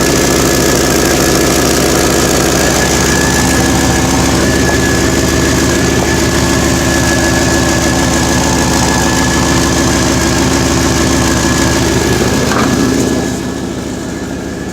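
A vehicle engine idling steadily with an exhaust leak where the exhaust flange has rotted away. Near the end the sound drops and turns duller.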